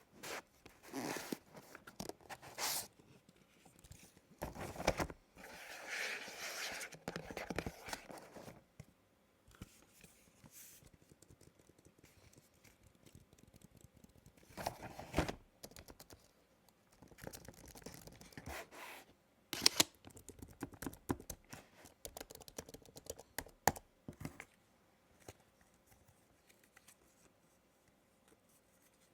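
Product packaging being handled and opened, in irregular stretches of scraping and rustling noise with a few sharp clicks, going quiet for the last few seconds.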